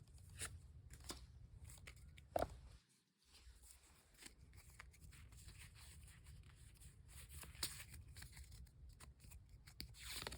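Faint handling of Pokemon trading cards and their packaging: scattered soft clicks and rustles, the loudest about two seconds in, over a low steady hum.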